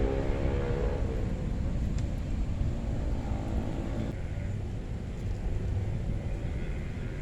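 A passing vehicle engine: a pitched engine hum that fades away about a second in, over a steady low rumble of traffic.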